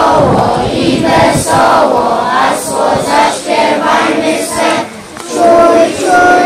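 A group of young children's voices singing together, in short sung phrases that turn into longer held notes near the end.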